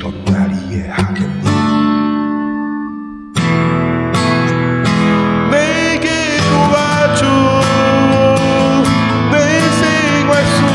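Steel-string acoustic guitar strumming chords. A chord is left ringing and fading, then about three seconds in the music comes back in fuller and louder, with a wavering melody line over the strummed chords.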